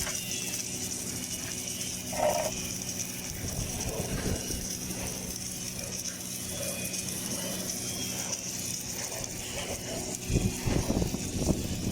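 Welding equipment running with a steady electrical hum and a high hiss, with a few metallic knocks and clatters near the end.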